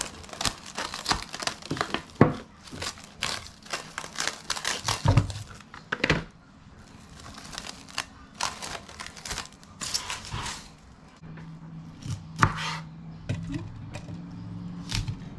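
Plastic cling wrap crinkling and tearing as it is pulled off the roll and pressed over a glass bowl, many quick crackles in the first half. Near the end a few sharp knife strokes cut broccoli against a wooden cutting board.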